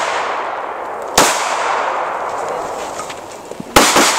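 Glock 27 subcompact .40 S&W pistol firing: a single shot about a second in, then a quick pair of shots near the end. Each shot leaves a long echo fading away.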